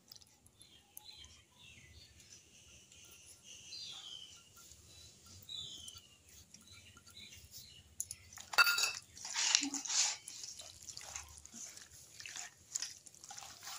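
Hands squishing raw chicken pieces and wet spice paste together in a steel bowl, working the marinade into the meat. A run of loud wet squelches comes about two-thirds of the way through, with quieter squishes after.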